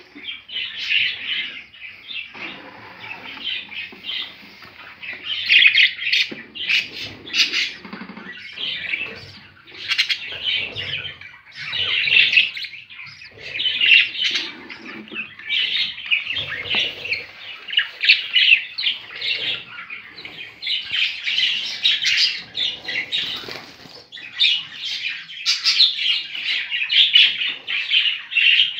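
Budgerigars chirping and chattering continuously in quick, overlapping calls, with some low rustling underneath.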